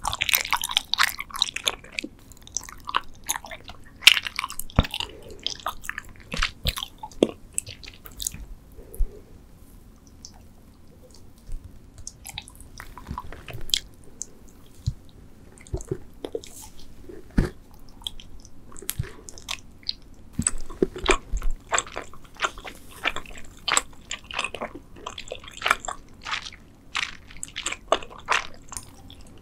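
Close-miked chewing and biting of Trolli spider-shaped gummy candies: a run of short, wet smacking and squelching mouth sounds, with a quieter stretch about ten seconds in.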